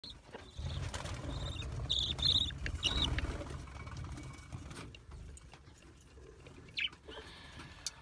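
Budgerigars in a nest pot giving a few short, high chirps about two and three seconds in, and one falling call near the end, over a low rumble of handling noise in the first half.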